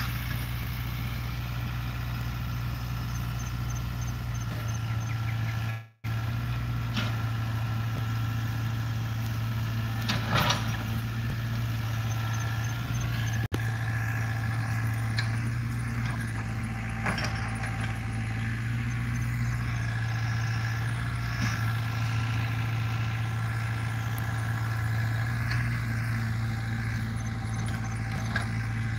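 Hydraulic excavator's diesel engine running steadily at work, a constant drone with a few knocks from the digging gear.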